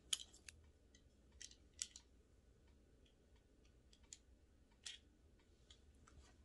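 Faint, scattered clicks and crinkles of fingers handling a small cosmetic product and its plastic packaging, the sharpest just after the start and the others coming every second or so.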